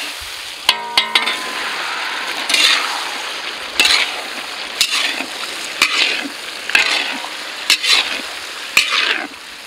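Diced raw potatoes going into hot oil and tomato gravy in a large metal kadai and sizzling, with a ringing metal clink about a second in. A long metal ladle then scrapes and stirs the pan, with a sharp stroke roughly once a second over the sizzle.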